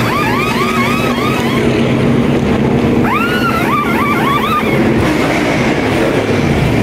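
Pneumatic impact wrenches (pit crew air guns) running lug nuts during a NASCAR pit-stop tire change: a rapid run of about six short rising whirs, a pause, then another run of about five, over the steady drone of race engines. Near the end a car's engine starts to rev up as the stop finishes.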